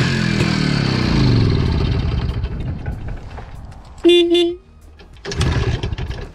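Izh Planeta 4's single-cylinder two-stroke engine running, its revs sinking steadily over the first few seconds as it runs down. A short horn beep comes about four seconds in, and the engine picks up loudly again near the end.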